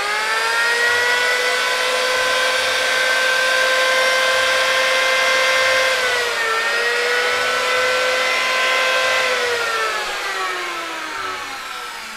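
Makita 82 mm electric hand planer running: a high whine that climbs as the cutter drum spins up and holds steady. Its pitch dips briefly about six seconds in, then falls away over the last few seconds as the motor winds down.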